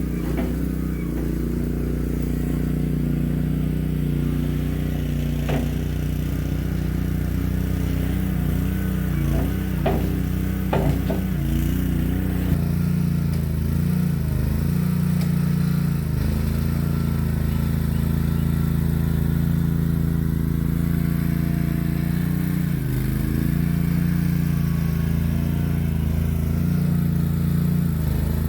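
Boxer 320 mini skid steer's engine running steadily, with a few short clanks about ten seconds in and a change in the engine note a couple of seconds later.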